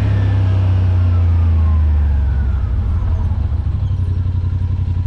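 Yamaha RMAX 1000 side-by-side's parallel-twin engine running loud with a steady low drone, its pitch falling over the first few seconds as it eases off.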